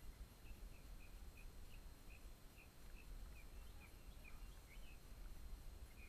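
Faint bird calling a run of short, repeated chirps, about two a second, over a low steady rumble.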